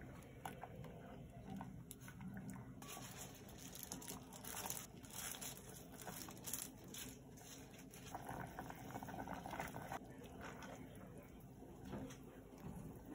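Doenjang jjigae broth simmering in a pot while a spatula stirs and scrapes through it, with soft sloshing and small knocks against the pot. From about three seconds to ten seconds a plastic glove crinkles as meat is dropped in.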